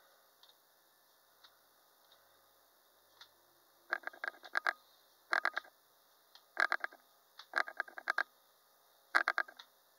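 Computer mouse scroll wheel clicking in quick runs of several notched ticks, five runs from about four seconds in, as a web page of photos is scrolled down.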